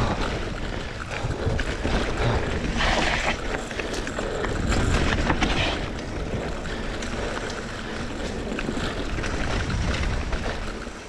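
Mountain bike riding fast down a dirt singletrack: knobby tyres rolling and scrubbing over packed dirt and leaves, with the bike rattling and clattering over bumps and a low rumble throughout. Two brief hissing scrubs of the tyres come at about three and five seconds, and it eases off right at the end.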